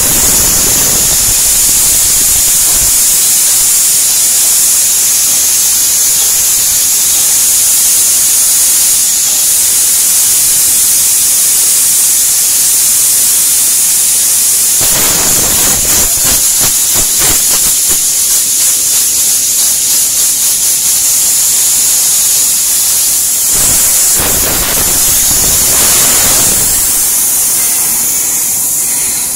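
Compressed air hissing steadily through an air hose into a large earthmover tyre as it is inflated. A few rougher, louder noises come in about halfway through and again a little before the end.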